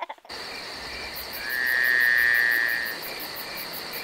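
Crickets chirping, a comedy sound effect for an awkward silence: steady, evenly repeating high chirps, with a louder steady trill in the middle that lasts about a second and a half.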